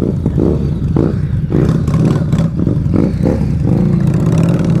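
V-twin motorcycle engine running steadily while riding, with the pitch wavering slightly near the end.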